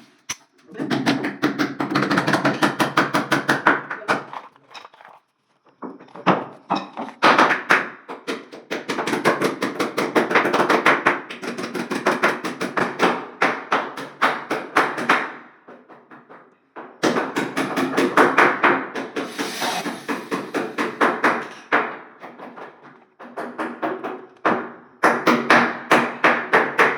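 Bursts of rapid, repeated knocking strikes on wood, several a second with a ringing tone under them, broken by short pauses about 5, 16 and 22 seconds in.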